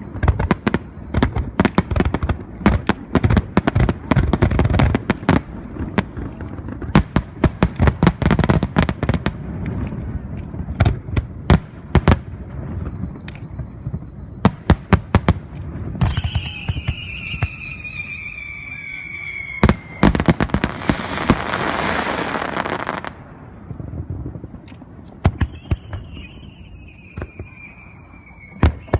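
Aerial fireworks display: shells bursting in rapid bangs and booms, many in quick succession through the first half. Later come two long whistling tones that slowly fall in pitch, with a few seconds of dense hiss between them.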